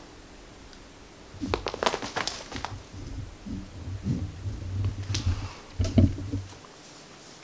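Rustling and sharp clicks over a choppy low rumble, from a pet being handled close to the microphone. It starts about a second and a half in and stops shortly before the end.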